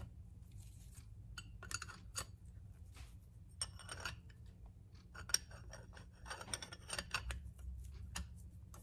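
Faint, scattered metallic clicks and clinks of Ford C4 clutch plates, steels and frictions, being handled and set into the direct clutch drum, in small clusters a few seconds apart.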